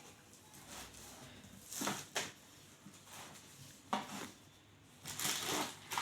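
Cardboard packaging of a new mixer grinder being pulled open by hand: short rustling, scraping and tearing sounds of cardboard and tape, a few seconds apart, with a longer stretch near the end.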